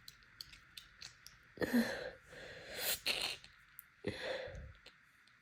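A woman sneezing during an allergy fit: three sharp, breathy bursts about a second apart, beginning about a second and a half in.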